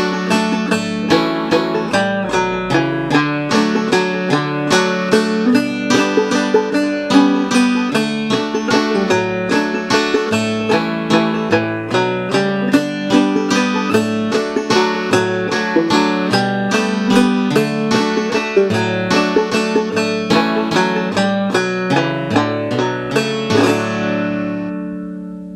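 Clawhammer banjo in D tuning (aDF#AD) playing an old-time waltz in D over a software-generated backing guitar track. Near the end the playing stops and the final chord rings out and fades away.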